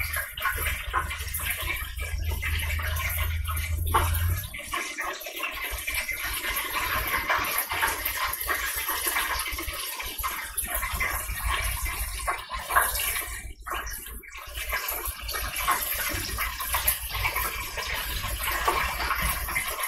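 Chicken pieces frying in a lidded electric deep fryer: the hot oil sizzles and crackles steadily. A low hum sounds for the first four seconds.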